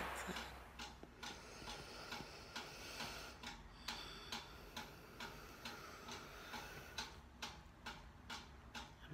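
Faint, even ticking, about two to three ticks a second, like a clock ticking.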